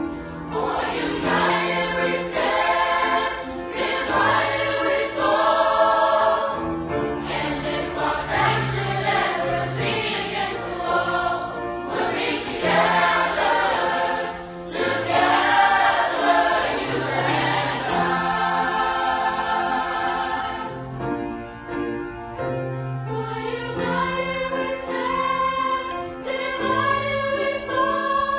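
A choir singing a song, with long held chords over a low bass line.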